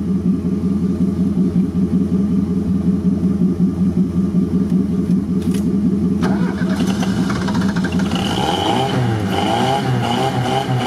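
LuAZ's petrol engine running while warming up after a restart, all cylinders firing with no knocking. From about eight seconds in the revs are raised and rise and fall unevenly.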